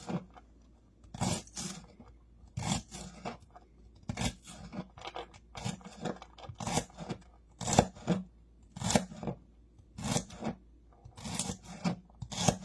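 A kitchen knife chopping celery on a cutting board, in short strokes that come unevenly, about one a second.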